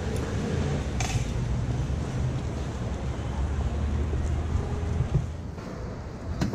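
Street food stall ambience: a steady low hum with a couple of sharp metal clicks, one about a second in and one near the end.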